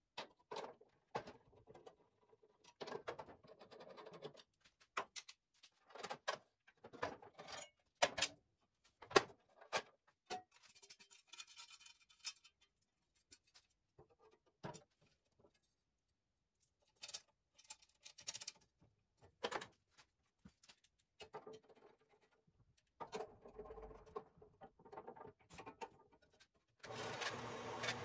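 Scattered clicks, taps and knocks of a screwdriver and hands adjusting the blade guides of a bandsaw. Near the end the bandsaw is switched on and runs steadily.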